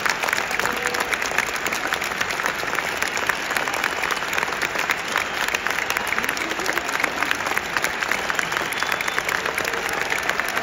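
Large stadium crowd applauding steadily, thousands of hands clapping with no break.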